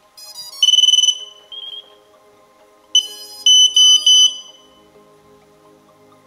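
Electronic beeps during radio receiver binding of a mini FPV quadcopter: a quick rising run of short tones, then a long high beep about half a second in, and around three seconds in one beep followed by three short beeps, with a brief chirp repeating between them. Faint background music underneath.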